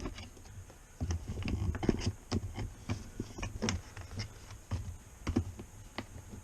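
Flathead screwdriver prying a small metal plate out of a rubber grommet in a motorcycle's rear fender: a run of irregular light clicks and scrapes.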